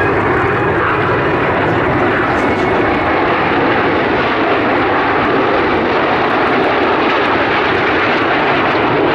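Loud, steady engine noise of a fixed-wing aircraft flying a display.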